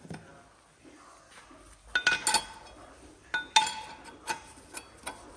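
Metal hand tools and sockets clinking against metal. There are short ringing clinks in two clusters, about two seconds in and about three and a half seconds in, then a few fainter clicks.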